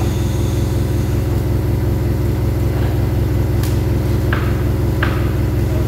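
An engine idling steadily with a low, even drone, with three sharp metallic clicks in the second half.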